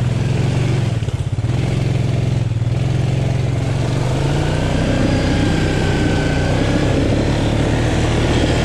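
ATV engine running at a fairly steady speed, its pitch shifting slightly about four seconds in.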